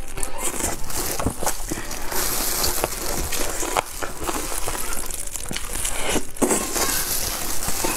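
Close-miked eating of roast chicken: crisp skin and meat torn apart and chewed, making a dense run of crunches and crackles, with crinkling of the foil the chicken sits on.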